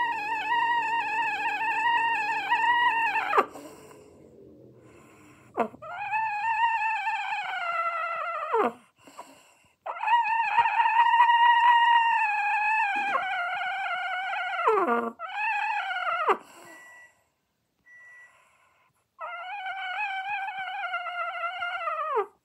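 Pet rooster 'talking': a series of long, wavering, drawn-out calls, each ending in a falling slide. It is not crowing; the owner says he makes this sound when he is asking for something or joining in a conversation.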